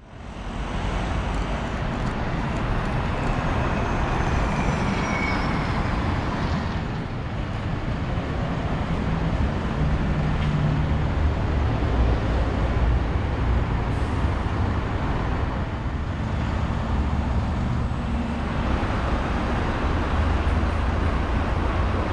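Steady road traffic on a busy city street, an even rumble and hiss of passing vehicles, with a brief faint high falling squeal about five seconds in.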